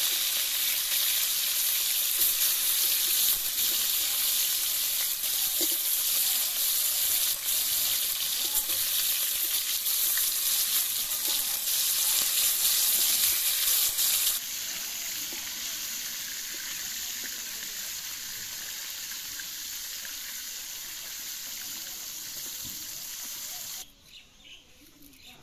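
Pieces of mrigal fish sizzling in hot oil in an iron karahi while a spatula turns them. The sizzle is loud at first, drops to a quieter level about halfway through, and cuts off near the end.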